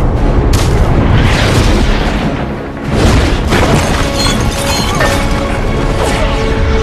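Film sound effects of heavy booms and crashing impacts, with a hit about half a second in and another about three seconds in, over a rushing jet-thruster noise and a music score.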